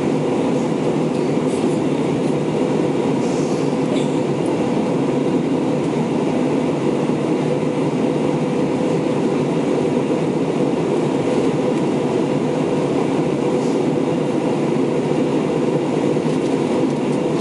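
Steady cabin noise inside an Airbus A321-231 on approach descent: the even, deep rumble of the engines and the airflow over the fuselage, unchanging in level.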